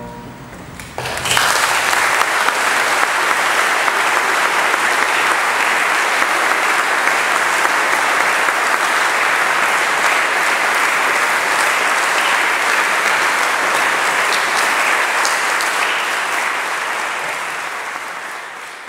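Congregation applauding, starting about a second in and fading out near the end. The last of an organ chord dies away at the very start.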